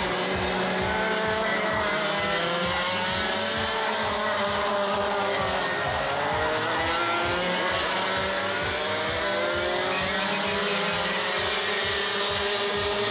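Racing kart two-stroke engines, several at once, revving through a corner, their pitches rising and falling over one another as the drivers lift and accelerate.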